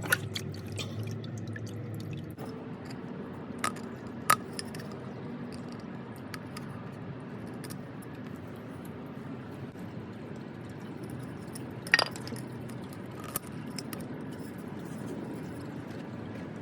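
Engine oil running and splashing steadily into a drip pan during an oil change on a Porsche 911 (997). Several sharp clinks of metal or tools are heard, the loudest about twelve seconds in.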